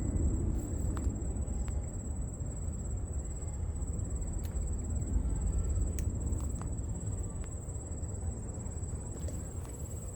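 An insect's steady high-pitched trill over a continuous low rumble, with a few faint clicks scattered through.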